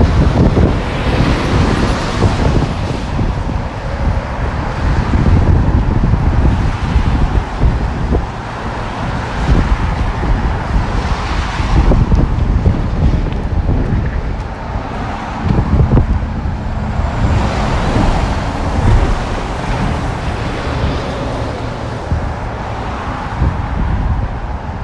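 Wind buffeting the microphone in a heavy low rumble, over road traffic passing on a wet street, cars swelling up and fading several times.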